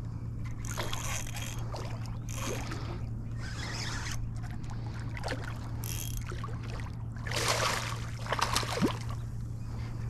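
A hooked redfish thrashing and splashing at the water's surface in several short bursts, the loudest near the end, over a steady low hum.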